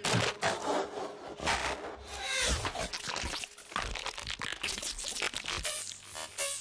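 Outro of a dark psytrance track: scraping, crackling electronic noise textures with irregular clicks and short sweeps.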